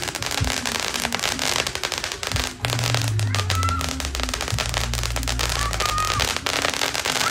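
A ground-mounted firework fountain shooting sparks and bursting stars that crackle and pop in dense, rapid runs with no let-up.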